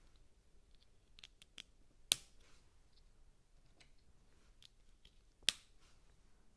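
Plastic LEGO bricks clicking as they are handled and pressed together: two sharp clicks about three and a half seconds apart, with lighter ticks between.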